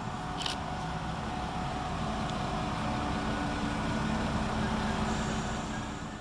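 West Midlands Railway Class 172 diesel multiple unit running into the platform, its diesel engines humming steadily over the rumble of the wheels. A brief sharp high sound comes about half a second in.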